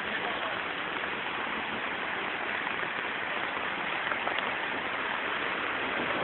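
Heavy summer downpour during a thunderstorm: rain falling steadily, an even hiss of water.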